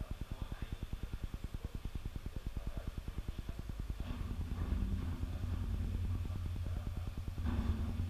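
A small engine running nearby, a rapid low pulsing that turns into a louder, steadier hum about four seconds in.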